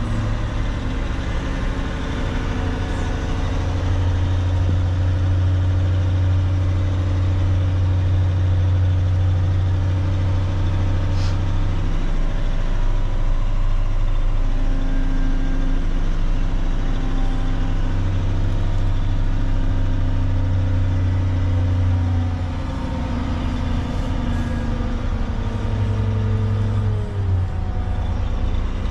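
Cat 730 articulated dump truck's diesel engine running as the truck is driven slowly, heard from inside the cab. The low engine drone swells and eases several times.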